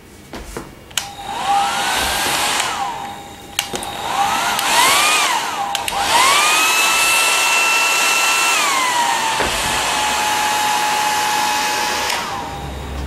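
Handheld hair dryer blowing, switched on and off several times with clicks, its motor whine rising as it spins up and falling as it slows. Then it runs steadily for several seconds, drops to a lower pitch, and stops near the end.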